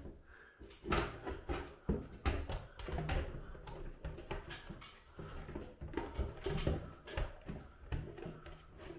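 Plastic blower assembly of a Broan-NuTone ChromaComfort bathroom exhaust fan knocking and scraping against its sheet-metal housing as it is worked into place, an irregular string of clicks and bumps.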